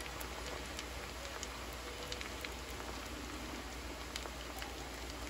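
Potato strips frying in a pan of oil: a steady sizzle with many small crackles and pops as the oil foams hard around them. It is the sound of the potatoes' moisture boiling off in the hot oil.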